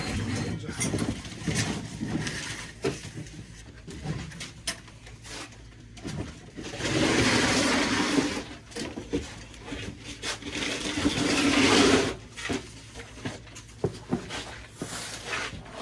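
Household items being moved about: scattered knocks and clunks, with two scrapes of about two seconds each in the middle as something heavy is dragged across the floor.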